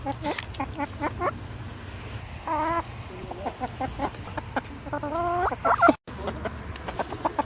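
Chickens clucking in short, repeated notes, with two longer drawn-out calls, one around the middle and one rising call near the end. The sound cuts out for a moment about six seconds in.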